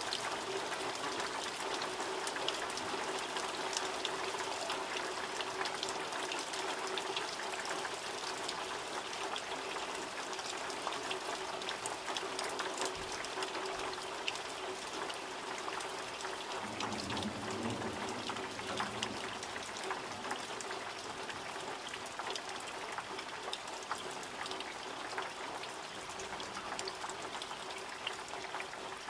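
Heavy summer rain falling steadily: an even hiss of rain thick with small drop ticks. A faint low sound swells for about two seconds a little past the middle.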